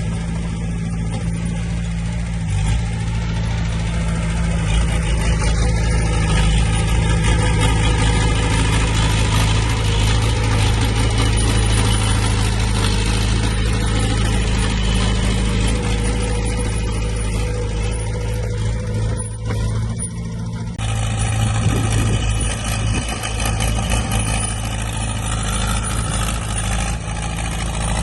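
Diesel engine of earthmoving machinery running steadily under load, with a change in its sound about three-quarters of the way through.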